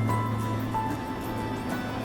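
Background music: held melody notes over a low bass line.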